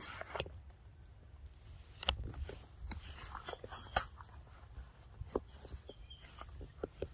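Rustling and snapping of leafy undergrowth underfoot: irregular crackles and sharp ticks, the loudest about two and four seconds in, over a low rumble.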